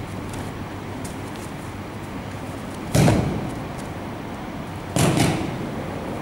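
Two heavy thuds on judo tatami about two seconds apart, each dying away quickly. They are a body hitting the mat as the uke is taken down.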